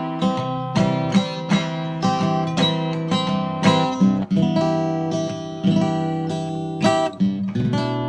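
A solo plucked string instrument plays a slow tune: single picked notes, about two or three a second, ring on over sustained low bass notes.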